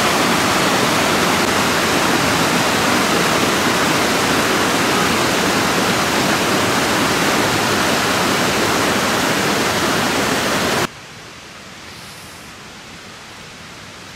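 Mountain stream rushing over rocks in small cascades, a loud steady rush of water. About eleven seconds in it cuts off abruptly, leaving a much quieter steady hiss.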